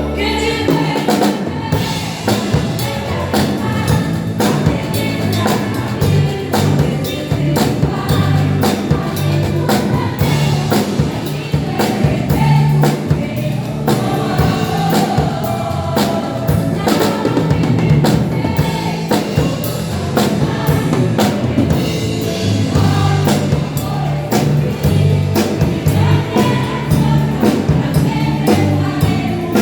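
Women's church choir singing a gospel hymn to band accompaniment, with bass and a steady drum beat.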